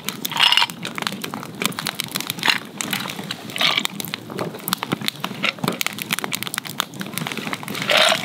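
Wood fire crackling and popping in a small camp grill, a dense run of sharp snaps, with a few short hissing sounds over it.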